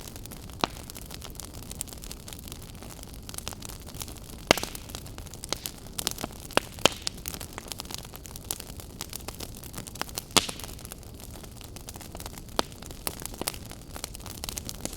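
Wood fire burning with a steady low hiss and irregular crackles, with sharp pops loudest about four and a half, six and a half and ten seconds in.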